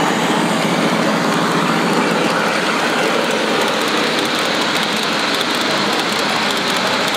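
G scale model diesel train rolling past on its track, with steady running noise from its motors and wheels.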